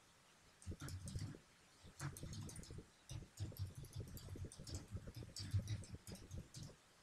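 Typing on a computer keyboard: quick runs of key clicks and thuds, broken by brief pauses in the first few seconds.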